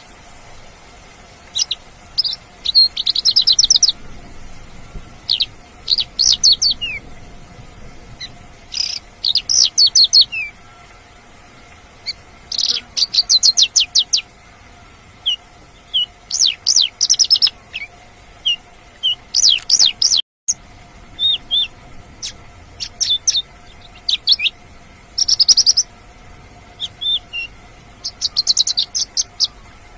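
Mongolian lark singing: short, fast phrases of high chirps and trills, one every second or two, over a faint steady hum.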